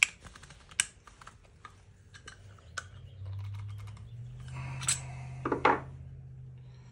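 Clicks and light clatter of a Spuhr G3 rifle stock assembly, its stock adapter and buffer tube, being handled and fitted together. The sharpest clicks come about a second in and near five seconds in, and a low steady hum joins about three seconds in.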